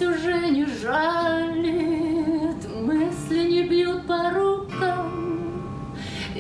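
A voice singing a slow melody with long held and sliding notes over acoustic guitar accompaniment.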